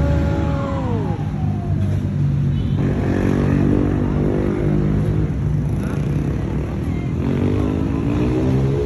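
Motor vehicle engines running in the street, with one engine's pitch falling in the first second and another rising near the end as a vehicle speeds up.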